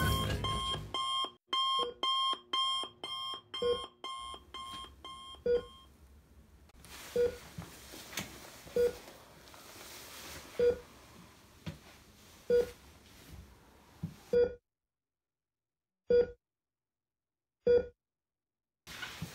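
Electronic beeping: a fast run of high two-tone beeps, about three a second, for the first six seconds, alongside and then alone a single lower beep about every two seconds, like a heart monitor beside a hospital bed.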